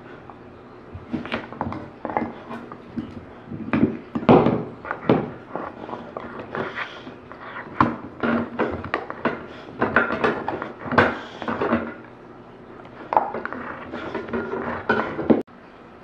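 A dog gnawing and scraping at the plastic edge strip of a cushion-vinyl floor where it meets the wall: irregular clicks, scrapes and knocks of teeth and claws, coming in uneven bursts and stopping abruptly near the end.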